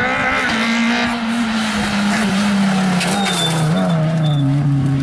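Renault rally car's engine running at high revs as the car passes at speed. Its pitch drops about two seconds in as it draws away.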